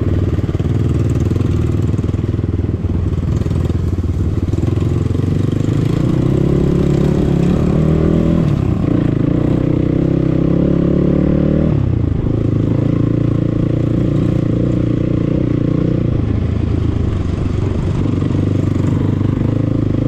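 Enduro dirt bike engine running while riding off-road, the throttle rising and falling. The engine note climbs about a third of the way in, holds higher for a few seconds, then drops sharply a little past halfway and settles again.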